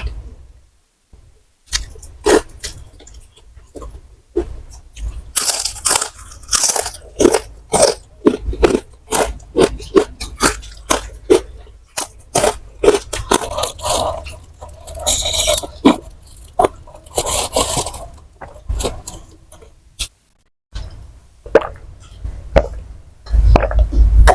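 Close-miked crunching and chewing of crispy fried snacks: many irregular crunches and bites in quick succession, pausing briefly near the end.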